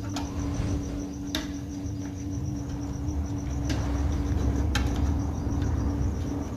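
A cricket chirping in a steady, rapid high-pitched pulse, about five chirps a second, over a low rumble and a steady hum. A few sharp clicks come as wires are worked into the MCB terminals.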